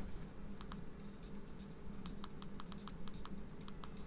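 Fingertips tapping and handling the Hiby R3 digital audio player's glass touchscreen: faint small clicks, a pair about half a second in, then a quick run of about a dozen from halfway through, over a low steady hum.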